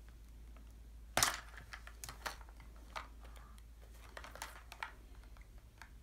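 Plastic toy surprise ball handled and opened by hand: one sharp click about a second in, then scattered lighter clicks and rustling of its wrapped segments.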